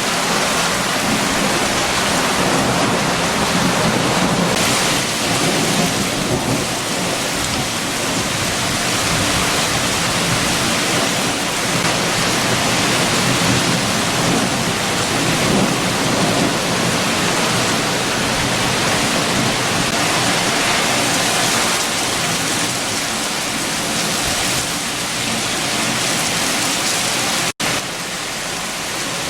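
Heavy rain with strong wind: a steady, dense rushing hiss that swells and eases. It cuts out for an instant near the end, then carries on a little quieter.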